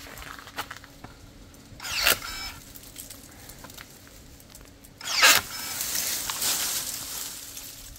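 Battery pruning shears (KEBTEK KTE-35, brushless motor) closing twice, about three seconds apart, each a brief motor whine with a sharp crack as the blade cuts through a branch. A rustle of leaves and twigs follows the second cut.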